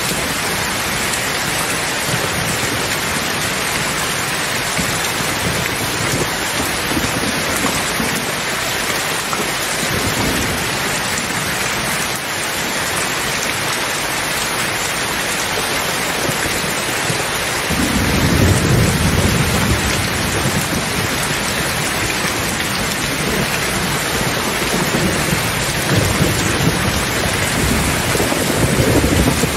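Steady rain with rolling thunder: a low rumble of thunder comes in suddenly a little past halfway, and another builds near the end.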